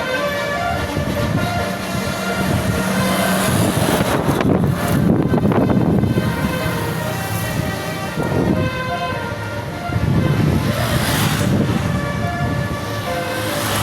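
A bus's Basuri 12-note "telolet" musical air horn playing a tune of held notes, changing pitch step by step, over the rushing noise of the bus and traffic, which swells several times.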